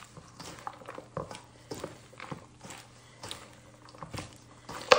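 Dressed salad leaves being tossed by a gloved hand in a stainless steel bowl: irregular soft, wet rustling and squishing with small ticks, and one sharper tick near the end.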